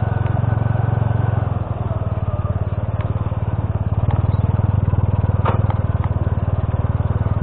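Honda C70 step-through motorcycle's small single-cylinder four-stroke engine running at low speed under light throttle. It eases off briefly about two seconds in, then pulls steadily again, with a few light knocks from the stony track.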